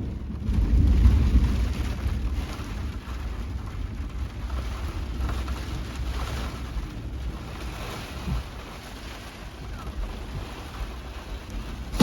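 Thunder rumbling, loudest about a second in, over steady rain and wind beating on a pickup truck's camper shell.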